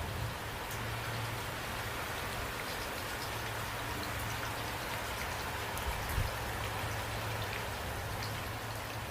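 Steady rainfall with scattered distinct drop ticks over a steady low hum.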